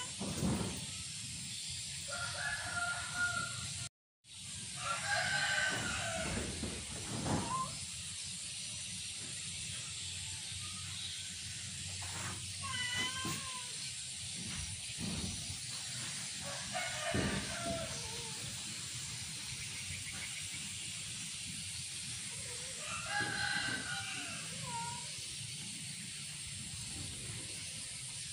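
Domestic cat meowing: about half a dozen drawn-out calls spaced several seconds apart. These are the calls of a cat stranded up high and too scared to jump down.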